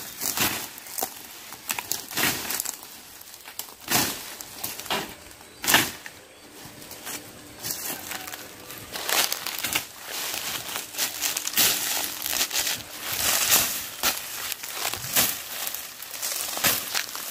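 Billhook blade on a long pipe handle chopping through weeds and brushy stems, each swing a sharp crunching, tearing hit among rustling leaves. A few spaced strokes come first, then a lull, then a quick run of strokes through the second half.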